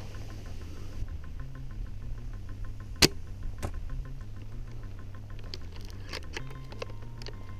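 Background music with a steady ticking beat and a shifting bass line. About three seconds in comes one sharp, loud crack, followed half a second later by a fainter one.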